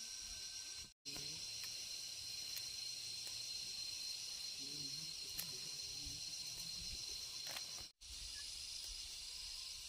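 Insects droning in a steady, high-pitched chorus with a thin ringing tone in it. The sound cuts out completely for an instant twice, about a second in and again about two seconds before the end.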